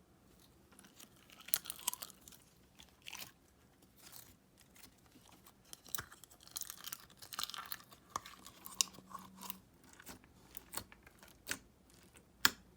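Fishbowl slime being squeezed and stretched by hand, making irregular clicks and crackling pops.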